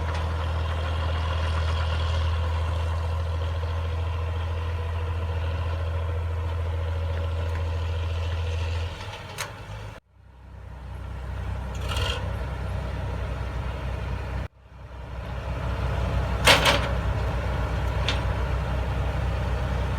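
Heavy diesel machinery engine running steadily with a deep low hum. It cuts out abruptly twice about halfway through and comes back, with short hissing bursts over it.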